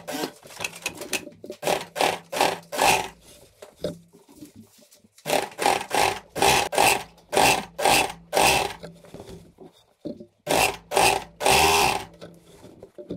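Industrial sewing machine stitching knit fleece in a series of short bursts, about two to three a second, with two brief pauses, as a sleeve is sewn into the curved armhole. A faint low hum carries on between the bursts.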